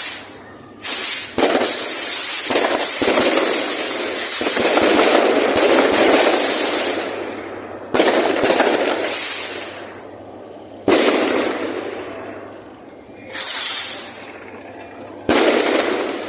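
Fireworks going off: sudden bursts, each fading into a hissing crackle, with a dense run of crackling from about a second and a half in to about seven seconds, then separate bursts every two to three seconds.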